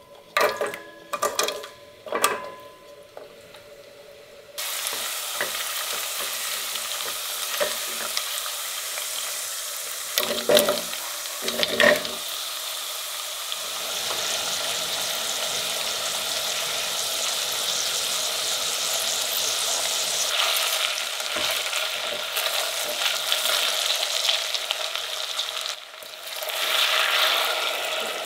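Carrot slices dropped one by one into a stainless steel pot with light clinks, then from about four seconds in a steady sizzle of carrots and diced potatoes frying in hot oil, with two knocks about ten and twelve seconds in. Near the end hot water is poured onto the frying vegetables, setting off a louder burst of hissing and bubbling.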